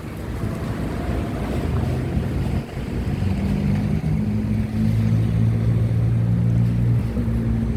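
A motor vehicle engine running steadily with wind noise on the microphone; its low hum grows louder and fuller about three seconds in.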